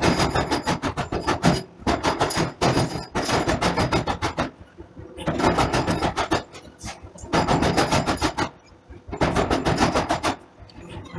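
Forging power hammer striking hot steel in rapid runs of blows, five bursts of one to two seconds each with short pauses between, over a steady machine hum.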